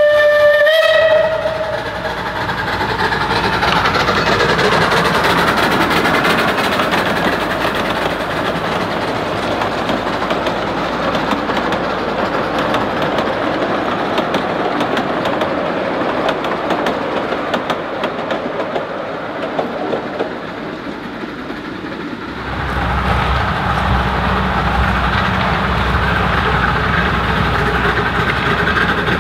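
15-inch gauge ride-on train: a locomotive whistle sounds for about a second at the start, then the cars roll over a trestle with a steady clatter of wheels on rail. About 22 seconds in, a steady low engine hum from the diesel locomotive comes in.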